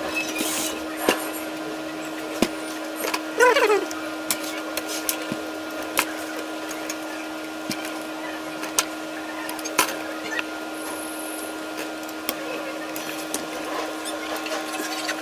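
Scattered clicks and knocks of a Panasonic UX90 camcorder's plastic body and parts being handled and taken apart, over a steady hum.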